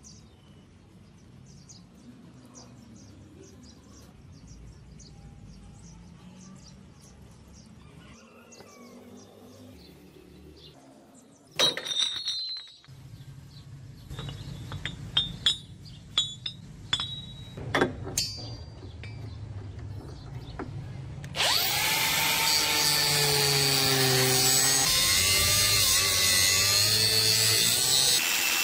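Faint background hum, then heavy rusted iron chain links clattering and clanking on concrete as they are handled, with several sharp clanks. About three-quarters of the way in, an angle grinder starts cutting into a chain link clamped in a vise: a loud steady grinding whose pitch wavers as the disc is loaded.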